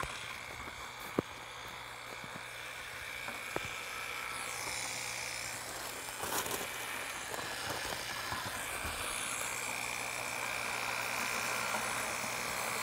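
Corded electric paddle mixer running steadily in a plastic bucket with a constant motor whine, blending the liquid components of a three-part urethane cement floor mix. There is one sharp click about a second in.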